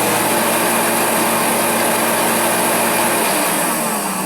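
Sears forced-air torpedo heater's blower motor and fan running on test, a steady motor hum over a rush of air. The hum changes and falls away a little before the end as the heater slows.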